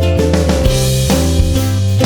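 Background music with drums and guitar.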